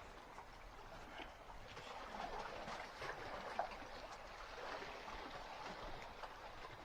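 Sea water lapping and trickling gently, a soft steady splashing with small scattered drips.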